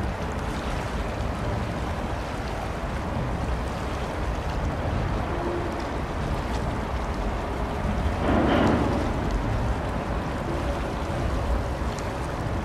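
Outdoor wind and water noise over a steady low rumble, with a brief louder rush of noise about eight and a half seconds in.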